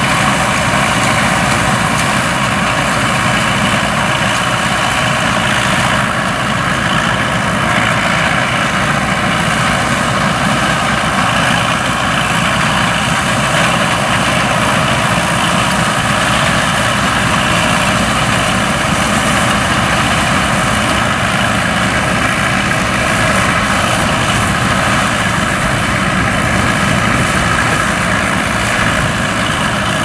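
Rostselmash SK-4 self-propelled combine harvester running at a steady, even pitch while harvesting, its engine and threshing machinery working as it throws out straw.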